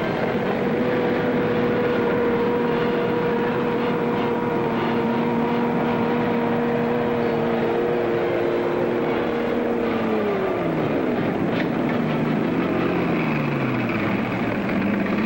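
Military vehicle engine running at a steady pitch, then winding down, its pitch falling over several seconds from about ten seconds in. It sits over the hiss of an old film soundtrack.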